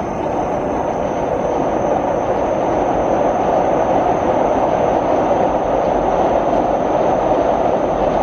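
A passing train's steady rushing rumble, building slightly and then cutting off suddenly at the end.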